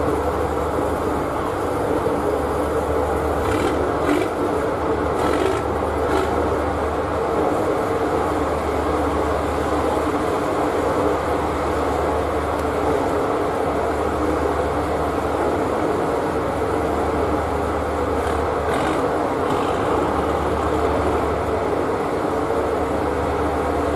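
Steady drone of a patrol ship's engines running, heard from on deck.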